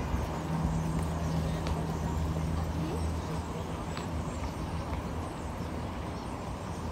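Low, steady engine hum with a humming tone that fades out about three and a half seconds in, leaving a lower rumble.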